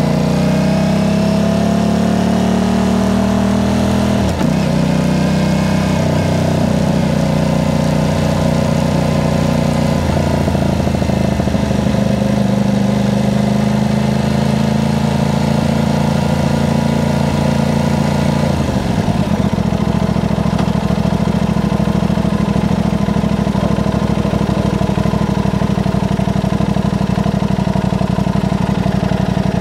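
Aprilia RS660's parallel-twin engine through a Mivv aftermarket exhaust, pulling away with rising revs and an upshift about four seconds in, then running steadily at low speed. About two-thirds of the way through the note drops and settles as the bike slows to a stop and idles.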